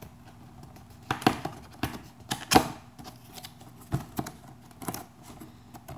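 A small cardboard box being handled: irregular clicks, taps and short scrapes of the cardboard, the strongest a longer scrape about two and a half seconds in.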